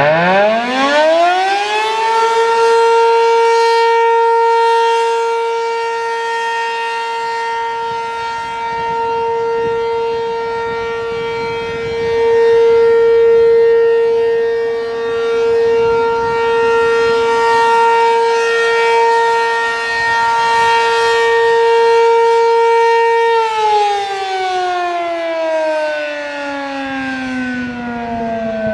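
ACA P-15 outdoor warning siren winding up over about two seconds to a steady single tone and holding it, the sound swelling and fading every few seconds. It begins to wind down, falling in pitch, near the end.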